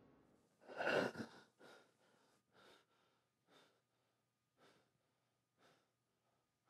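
A man gasps sharply about a second in, then breathes heavily, one breath about every second.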